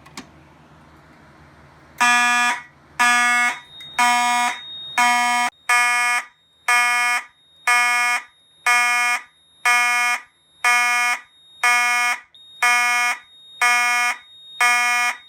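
A pull-down fire alarm pull station handle clicks as it is pulled. About two seconds later the system's buzzy electronic fire alarm horn starts sounding in pulses, about one a second, to signal an alarm.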